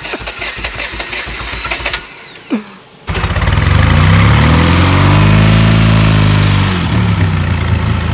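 Zhiguli (VAZ) four-cylinder engine, running on slime in place of oil, idles, then about three seconds in is revved up and falls back to idle. The revs climb only part way before dropping: the crew say it will not reach maximum revs, suspect damage to the fuel system, and say the engine has started knocking because the slime washed away the oil film.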